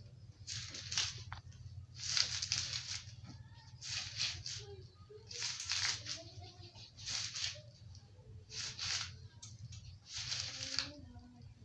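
A person's forceful breaths out through the mouth, one with each repetition of a seated twisting ab crunch, about every second and a half. A steady low hum runs beneath.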